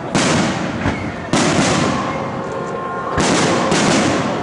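Aerial fireworks shells bursting overhead: four sharp bangs, each trailing off slowly into echoing noise before the next.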